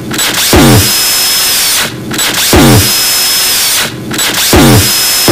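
Loud, distorted power-drill-like whirring noise, sampled and repeated in three bursts about two seconds apart, each starting with a falling pitch sweep.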